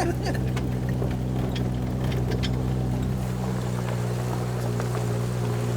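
Vehicle engine and exhaust droning at a steady speed, heard from inside the cabin while driving, with a few light rattles and ticks.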